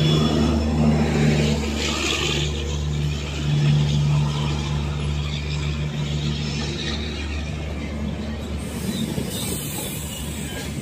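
WDP4D diesel-electric locomotive's engine droning steadily as it passes, with its 16-cylinder EMD two-stroke hum fading after a few seconds. The passenger coaches keep rolling past with a broad rumbling noise as the train slows to arrive.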